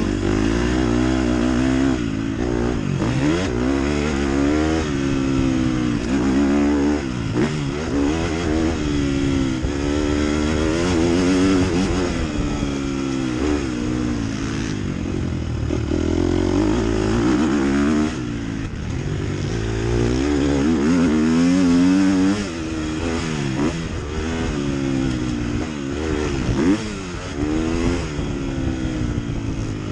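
KTM 250 SX-F's four-stroke single-cylinder engine revving hard and dropping back over and over as it accelerates, shifts up and rolls off for corners and jumps around a motocross track, heard close up from the bike itself.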